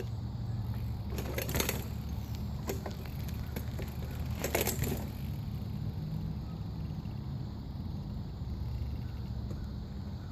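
BMX bike being ridden for trick attempts: a steady low rumble, with two short scraping rushes about one and a half and four and a half seconds in, and a few light clicks.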